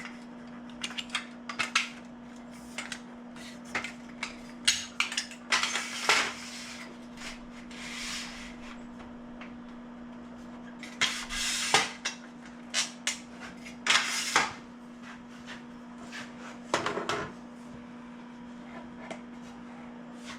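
Scattered knocks, clatters and scraping as items are shifted about and a camera tripod is set up, over a steady low hum.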